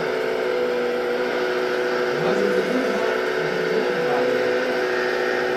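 Steady whine of a MAGOM HRC radio-controlled hydraulic excavator's pump running while the boom and bucket swing.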